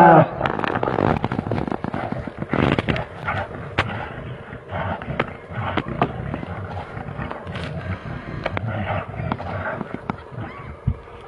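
Two brown bears fighting: a rough, noisy scuffle broken by many sharp clicks and knocks, with the tail of a loud roar cutting off just as it begins.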